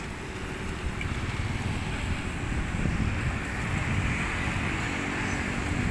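Street traffic, with a motorcycle engine running close by and growing louder after about a second.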